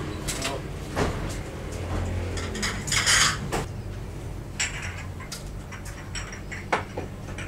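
Scattered light clicks and clinks, with a short burst of hiss about three seconds in as the loudest moment, over a low steady hum.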